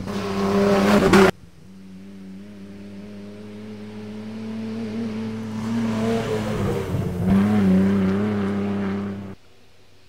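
Mitsubishi pickup rally trucks at speed on a dirt stage. One passes close at full throttle and cuts off abruptly about a second in. The next truck's engine grows steadily louder as it comes on, its pitch dipping briefly and climbing again about seven seconds in. It cuts off shortly before the end, leaving a faint distant engine.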